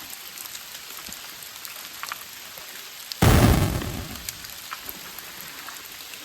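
Steady rain with scattered drips ticking. About three seconds in, a sudden loud burst of noise with a deep low end fades away within about a second.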